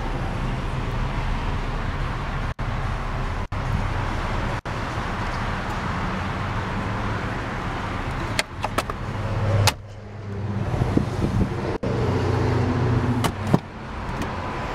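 Ford 4.0-litre SOHC V6 idling steadily as a low hum. A few clicks and knocks from the doors and trim being handled come about two-thirds of the way through, with a sharp knock near the end as the rear door is opened.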